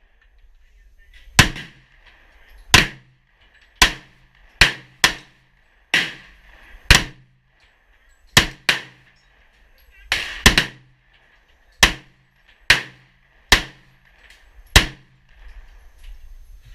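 Gunshots fired at an irregular pace, about fifteen in all, some in quick pairs a fraction of a second apart.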